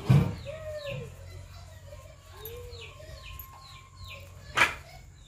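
Birds calling: repeated short, falling chirps and a few lower arched calls like a hen's clucks, over a steady low background. A heavy knock just at the start and a sharp click about four and a half seconds in.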